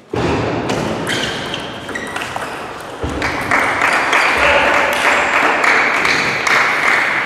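Table tennis rally: the ball clicks off the bats and the table about twice a second, over loud, steady background noise in the hall. One of the bats is a Sword 309 Def blade with SpinLord Marder II rubbers.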